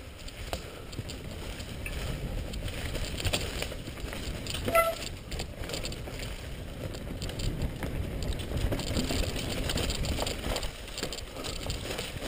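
Mountain bike riding down a leaf-covered dirt singletrack: tyres rolling through dry leaves and the bike rattling and knocking over roots and rocks. A short squeal about five seconds in.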